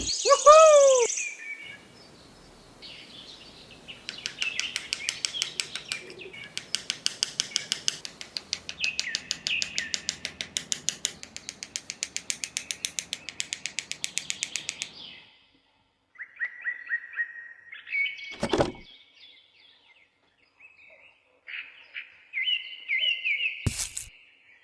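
Small birds chirping, with a fast, even rasping rhythm under the chirps for the first half and two sharp knocks in the second half.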